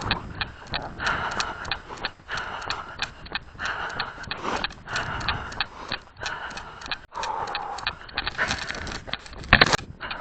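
A runner's footfalls at a steady cadence, about three a second, over a rustling haze, with a louder knock about nine and a half seconds in.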